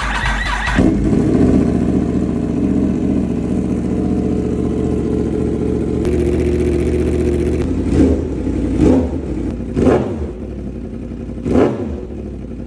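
Yamaha R1's inline-four engine starting up with a sharp burst and settling into a steady idle. It is then blipped in four quick revs through the exhaust near the end, each rising and falling back to idle.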